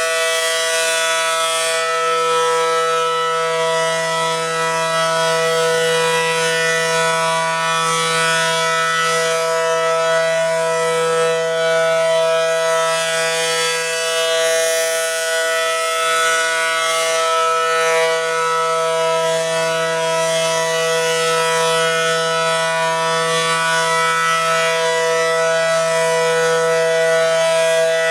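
ACA Allertor 125 outdoor warning siren sounding a steady alert tone made of several pitches at once, with no rise or fall in pitch. The balance between its pitches shifts back and forth every few seconds.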